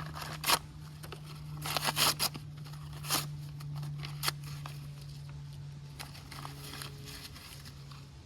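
Newspaper being torn and crumpled into balls for fire-starting: several short, sharp rasps of paper in the first half, with a steady low hum underneath.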